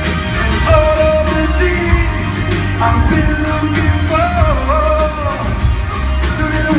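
Live pop song over a concert PA: a singer's vocal line above a band with heavy bass and a steady drum beat.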